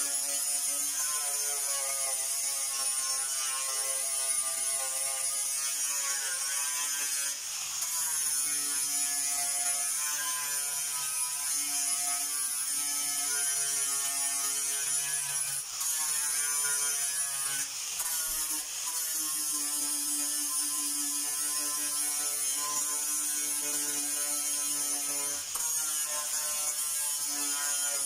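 Handheld power sander grinding the paint off the dented front fender panel, a steady motor whine whose pitch sags and recovers as it is pressed against the metal, with a few brief dips where it is eased off the panel.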